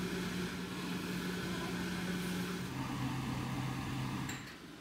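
Steady low mechanical hum, like a small motor or fan running. It steps down in pitch a little over halfway through, then drops away near the end.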